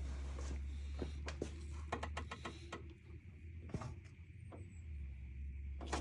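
Light metallic clicks and knocks of engine parts and tools being handled, over a steady low rumble; the clicks come thickest about one to three seconds in and again near the end.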